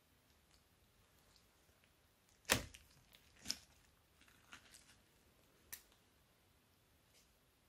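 A few faint taps and clicks from handling a clear plastic bag of liquid slime, the sharpest about two and a half seconds in and another about a second later.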